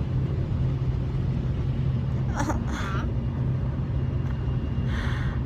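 Steady low drone of engine and road noise inside a moving car's cabin. A couple of brief vocal sounds come about halfway through.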